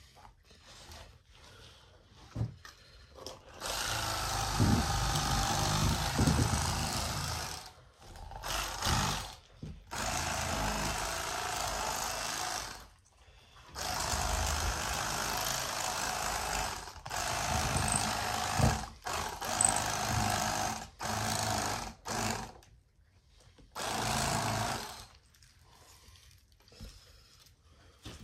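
Cordless battery-powered electric fillet knife running in about seven bursts of up to four seconds each, stopping briefly between them, as its reciprocating blades cut fillets off a fish.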